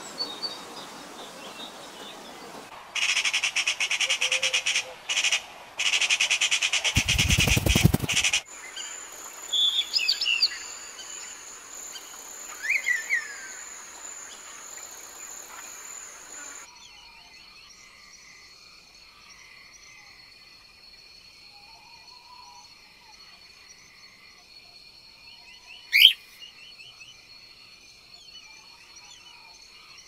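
Songbird calls and chirps from several different recordings spliced together. A loud, rapid buzzing trill comes a few seconds in, and a steady high insect-like whine runs under small repeated chirps in the second half. One loud, sharp call comes near the end.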